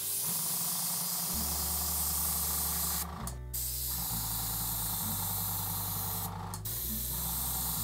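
Gravity-feed airbrush spraying paint: a steady hiss of air and atomised paint in three long passes, breaking off briefly about three seconds in and again about six and a half seconds in.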